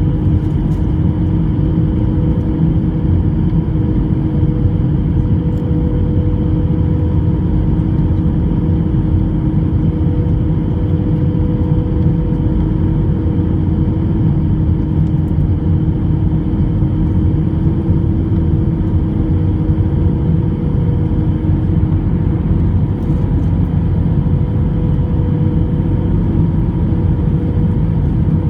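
Airbus A321 cabin noise in flight: a steady, loud drone of engines and airflow with a constant hum through it and no change in level.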